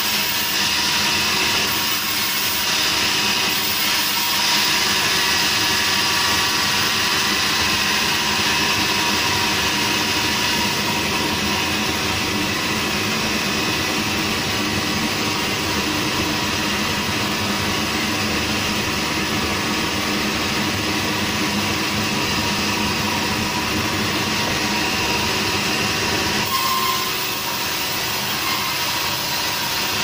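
Sawmill band saw running, a steady continuous machine noise that dips slightly about 26 seconds in.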